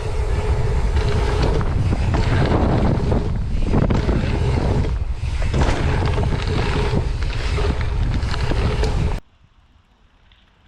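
Strong wind buffeting the microphone: a loud, steady rumbling roar that cuts off suddenly about nine seconds in.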